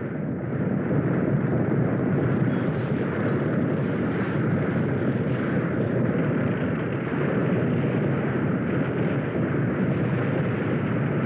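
A steady, loud, roaring rumble: an earthquake sound effect. It builds over the first second or so and then holds.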